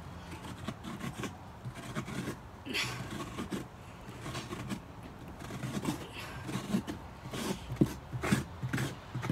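Pumpkin-carving scraper scraping the pulp and stringy guts from the inside wall of a pumpkin, in irregular rasping strokes, with a few sharper scrapes near the end.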